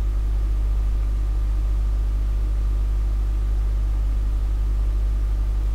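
Steady low electrical hum with a faint, thin, steady high tone above it: the recording's background noise, unchanging throughout.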